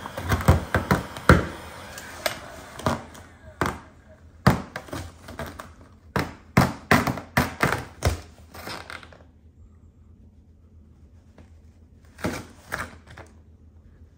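Plastic paint protection film crackling and crinkling as it is peeled off a car's body panel and bunched in the hands, in a quick irregular run of sharp crackles for most of the first nine seconds and a short burst again near the end. A heat gun's blower hisses under it for the first few seconds.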